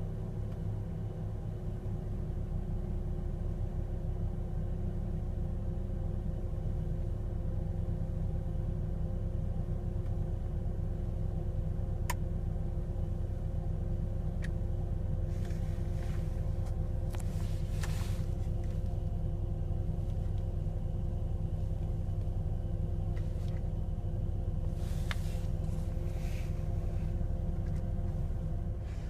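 Volvo V70R's turbocharged five-cylinder engine idling steadily, with several steady held tones over the engine rumble: the strange noise that the owner blames on a bad alternator bearing. A sharp click comes about twelve seconds in, and short bursts of hiss come near the middle and again near the end.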